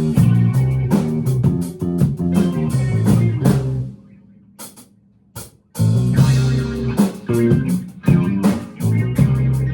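Rock band playing: guitar, bass and drum kit in a driving rhythm. About four seconds in the band stops dead for nearly two seconds, then comes back in together.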